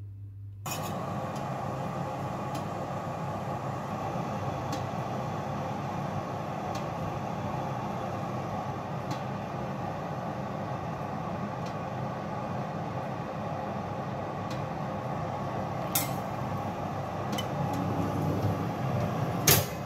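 Oven running with a steady fan whir, and two sharp clicks, one late on and one just before the end.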